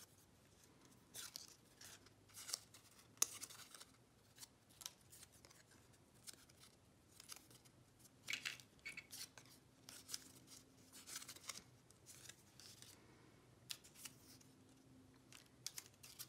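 Faint, irregular rustling and crinkling of cut paper flower petals being bent and shaped by hand, with a sharper tick about three seconds in.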